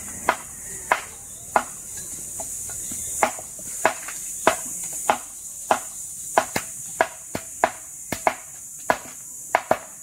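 A hand tool striking split bamboo in steady sharp knocks, about one and a half a second, a few in quick pairs, as a bamboo pole is hacked and split for flattened bamboo wall slats. A steady high hiss runs underneath.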